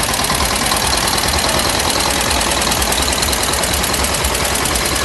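Vintage tractor's diesel engine running at low revs close by, with a steady, rapid knocking beat.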